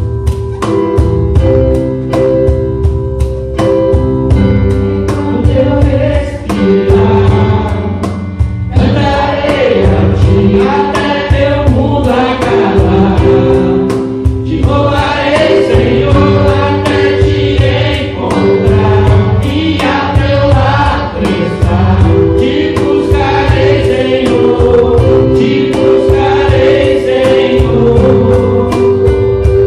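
A man and two women singing a Portuguese-language gospel worship song together into microphones over instrumental accompaniment. The voices come in several seconds in, after a few held instrumental notes.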